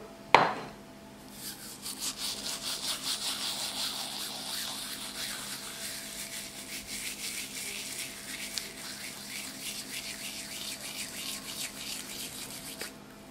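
Dried herbs crumbled between fingertips over a bowl of tolma filling: a fast, dry crackling rustle that runs for about eleven seconds and stops just before the end. A sharp knock comes about half a second in.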